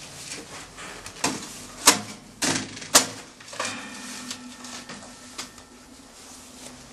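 Sharp clicks and knocks of ski boots snapping into ski bindings and skis knocking on a wooden balcony bench, with the two loudest clicks about two and three seconds in.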